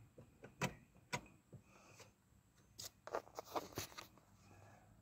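Faint clicks and knocks: a few spaced single ones, then a quick cluster about three to four seconds in.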